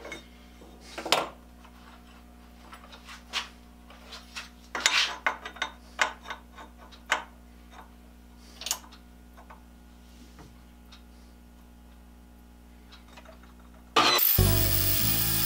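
Scattered short metal clicks and clinks of tools being handled and set at a metal lathe, over a low steady hum. About 14 seconds in, loud music starts abruptly.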